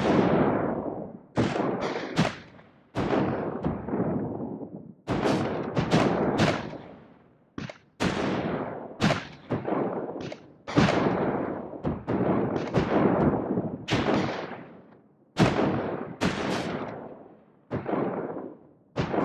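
Gunfire and cannon-like blasts in an irregular string, one to three a second. Each sharp crack rings off over about a second.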